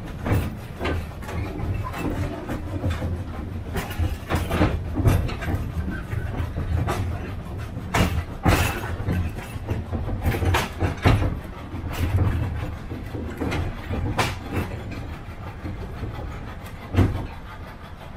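Narrow-gauge field-railway train on the move: the wagons clatter and knock irregularly on the track over a steady low drone from the small locomotive's engine. The knocking thins out near the end.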